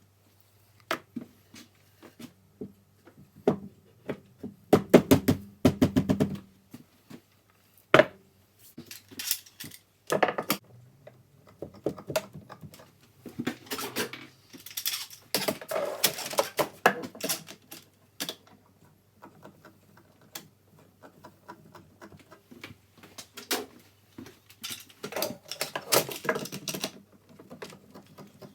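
Hand work in a woodworking shop: irregular clicks, knocks and rattles of wood and metal being handled, with a quick run of clicks early on and a couple of longer scraping, rustling stretches, over a low steady hum.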